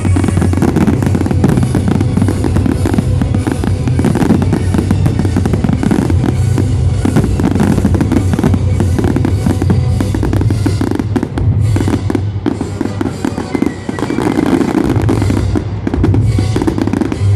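Fireworks going off in rapid, dense bangs and crackles over loud show music with a drum beat, thinning briefly a little past the middle.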